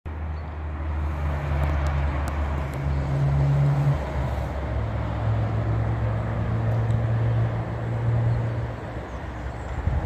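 Road traffic noise: the low drone of passing vehicle engines over a steady rumble of tyres, the drone dropping to a lower pitch about halfway through.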